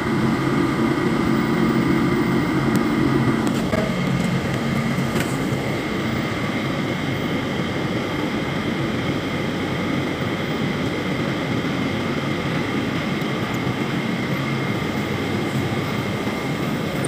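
Steady drone of shipboard machinery and ventilation, with a deeper hum that fades out about four seconds in.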